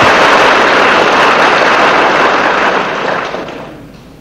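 An audience applauding loudly, dying away about three seconds in.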